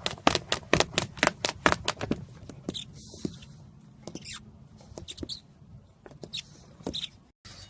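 A puppy mouthing the rim of a plastic tub: quick clicks at about five a second for the first two seconds, then scattered clicks and light scrapes.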